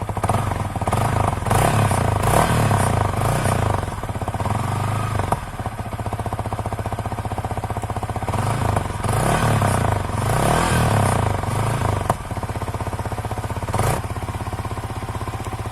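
Yamaha MT-15 BS6's 155 cc single-cylinder engine running through an exhaust that has been cut down a little, idling and revved in two spells of repeated throttle blips, with one short blip near the end. The modified exhaust note is not very loud.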